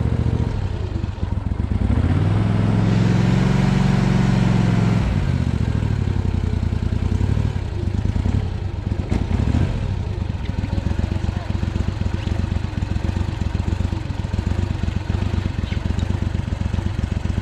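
Boat motor running. It speeds up about two seconds in, drops back about five seconds in, then runs steadily with an even pulse.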